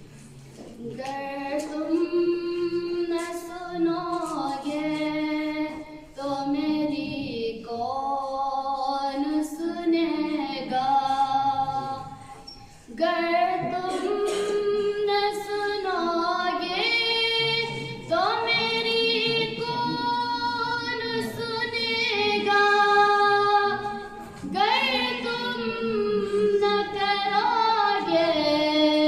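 A girl's solo voice singing a naat without accompaniment: long, held, ornamented notes that slide between pitches, sung in phrases with short breaths between them.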